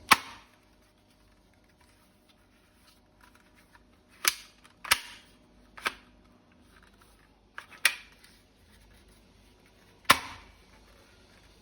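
Toy M416 assault rifle going off in single sharp cracks, about six at irregular intervals, the first and loudest right at the start.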